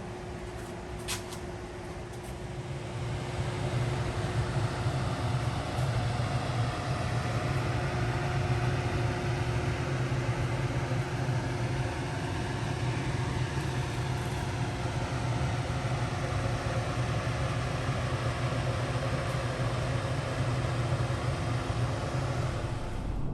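Electric power-tool motor running steadily, getting louder about three seconds in, with a single click about a second in.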